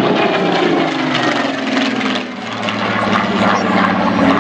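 Spitfire PR XIX's Rolls-Royce Griffon piston engine as the aircraft flies past. Its pitch drops over the first couple of seconds as it passes, then holds steady.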